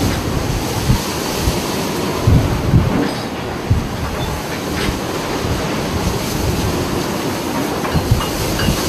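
Storm wind buffeting the microphone over heavy seas breaking around a ship: a steady, loud rushing roar with scattered low thuds.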